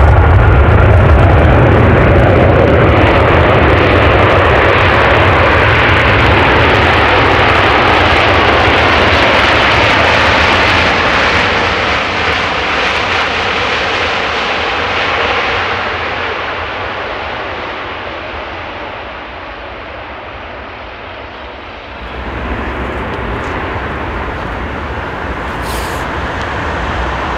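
Airbus A380's four Rolls-Royce Trent 900 turbofans at high thrust for takeoff: a loud jet roar with a deep rumble that slowly fades as the aircraft moves off. About 22 seconds in the level steps up abruptly to a steadier, more distant roar.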